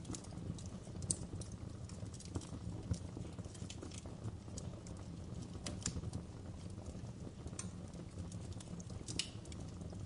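Wood logs burning in an open fireplace, crackling with irregular sharp pops over a low steady rumble.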